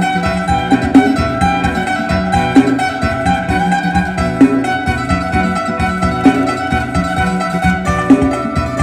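Phin, the northeastern Thai plucked lute, playing a fast lam sing tune over steady drone notes, with a regular beat.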